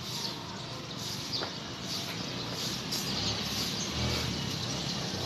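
Outdoor street ambience: a vehicle's low rumble swells about three seconds in and fades near the end, with faint bird chirps over it.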